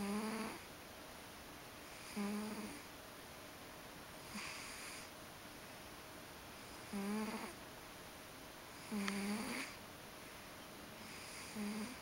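Ragdoll cat snoring in its sleep: six short pitched snores, roughly one every two seconds.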